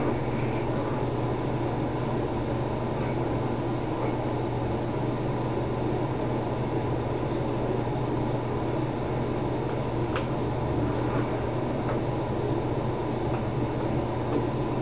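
Steady background hum and hiss with a few faint small clicks, one sharper click about ten seconds in.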